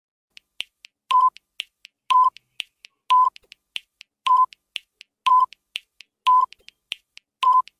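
Quiz countdown timer sound effect: a short electronic beep about once a second, with quicker, lighter ticks between the beeps.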